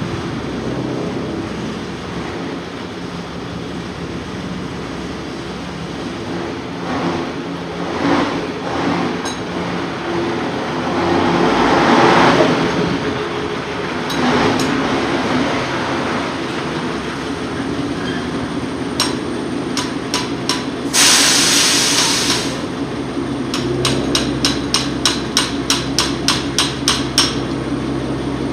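Metal-on-metal work at a truck's rear wheel hub and brake assembly: scattered knocks, a burst of hiss lasting about a second and a half past the middle, then a quick run of hammer taps, about four a second, near the end, over a steady low hum.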